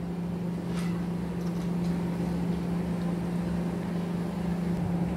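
Steady low hum with a couple of faint clicks as a model locomotive and tender are set on the track.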